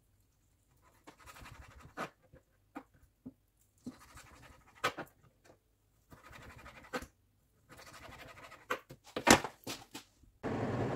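Kitchen knife cutting raw fish into chunks on a plastic cutting board: soft scraping cuts and light taps of the blade on the board, with a couple of louder knocks near the end. A steady rushing noise starts just before the end.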